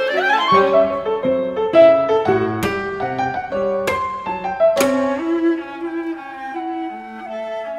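Instrumental theme music led by bowed strings. It opens on a rising glide, then moves into a quick run of notes with a few sharp accents.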